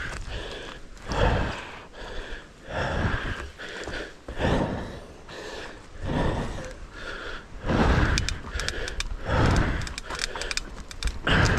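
A mountain biker breathing hard while riding, with loud heavy breaths about every second or so, over the low rumble and rattle of the full-suspension bike's tyres on a rough dirt and rock trail.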